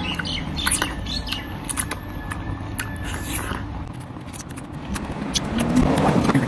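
Wet, close-up eating sounds of a person biting and sucking ripe mango flesh off the skin: irregular slurps, lip smacks and chewing clicks.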